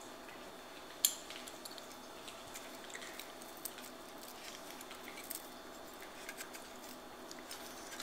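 Faint clicks and light rattling from a CPU cooler and its cables being handled, with one sharper click about a second in over a low room hiss.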